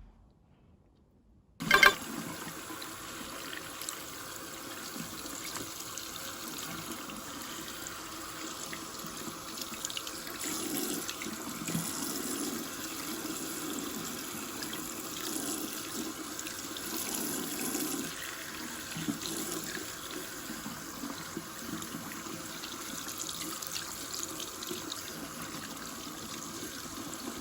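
Water running from a tap into a sink in a steady stream. It starts suddenly about one and a half seconds in.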